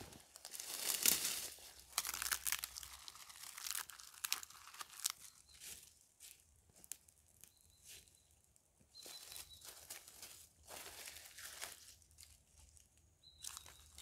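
Irregular rustling, crinkling and crunching from something being handled, coming in uneven bursts with short pauses.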